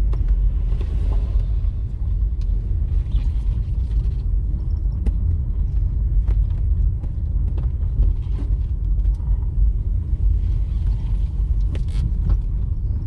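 Vehicle travelling along a road: a steady low rumble with scattered knocks and rattles.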